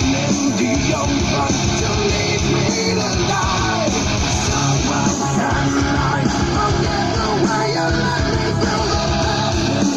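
A song with guitar and shouted, sung vocals played back through a portable speaker box during a bass sound check, with strong steady bass.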